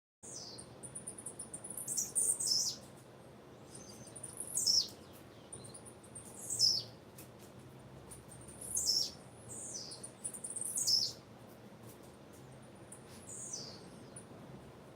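Female blue-black grassquit (tiziu) calling: high, thin chirps that sweep downward, about one every two seconds, six in all. A quick run of faint high ticks comes before the first chirp.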